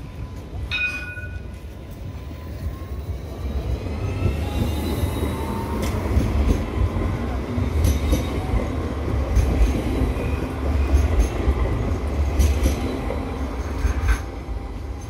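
Sydney light rail Alstom Citadis tram passing close by on street track. A low rumble of wheels on the rails builds and then eases, with a whine rising in pitch as it approaches and several sharp clicks from the wheels as it goes by.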